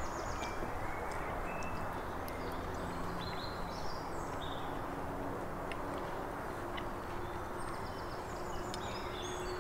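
Outdoor ambience: a steady low rush with small birds chirping in short, high notes throughout, and a few faint light clicks.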